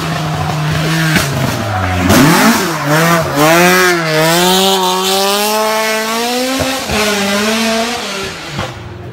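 Ford Escort Mk2 rally car engine passing at full stage pace. The revs drop under braking about two seconds in, then climb again with a wavering pitch as the car accelerates hard out of a hairpin. The engine is loud, and the sound fades near the end.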